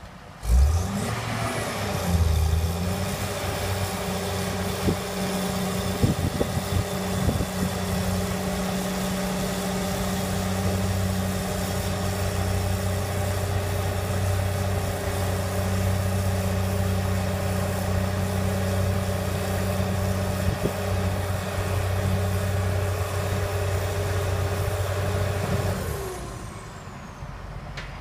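Heavy construction machine's diesel engine revving up just after the start, with a high whine climbing alongside it, then running steadily at high speed; near the end it winds down and the whine falls away.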